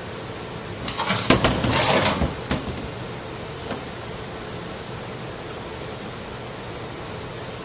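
A brief clatter of sharp knocks and clicks about a second in, followed by a steady background hum.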